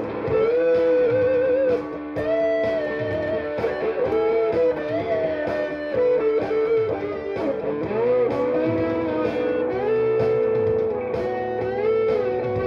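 Electric guitar played lead: long single held notes with string bends and vibrato.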